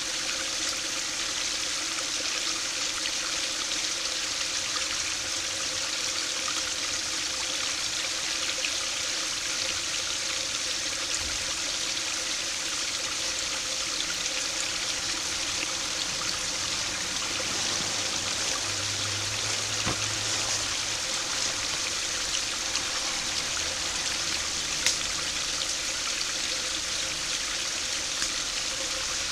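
Small stream spilling over a low concrete weir, a steady splashing trickle of falling water into a shallow pool. One brief click near the end.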